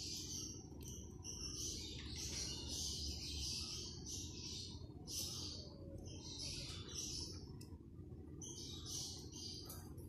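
An African grey parrot making repeated short, high, hissy chirping sounds while it feeds, over a steady low background rumble.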